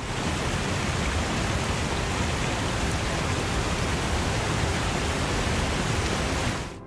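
Waterfall rushing: a dense, steady noise of falling water that comes in suddenly and cuts off suddenly near the end.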